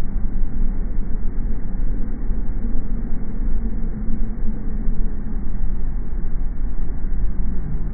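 Car driving: a steady low rumble of road and engine noise with a faint hum.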